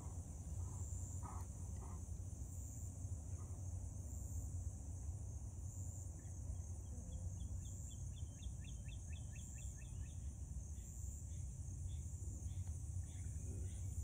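Steady high evening insect chorus over a low, even rumble. About eight seconds in a bird gives a quick run of chirps, then a few scattered single calls follow.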